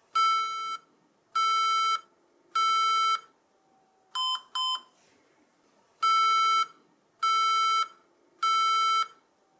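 HP ProDesk 600 G2 Mini's internal speaker sounding a BIOS beep code at power-on: three long beeps, then two short, slightly lower beeps, then three long beeps again as the pattern repeats. This three-then-two code marks a memory-initialization error.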